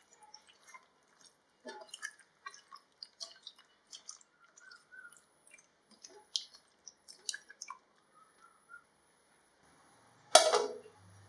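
A hand squishing and mixing raw chicken pieces with curd and spices in a ceramic bowl: irregular wet squelches and light clicks. About ten seconds in, a ceramic plate is set down over the bowl with one sharp clink, the loudest sound.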